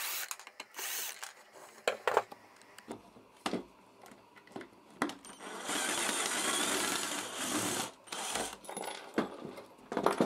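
A J.L.D Tool cordless drill-driver drives a screw into a wooden board. It runs in short bursts near the start, then steadily for about two seconds in the middle. Clicks and knocks from handling the parts come between the runs.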